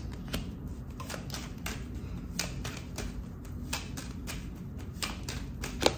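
Oracle cards being handled: taken from the deck, flicked and dealt onto a cloth-covered table, giving a string of irregular light clicks and snaps.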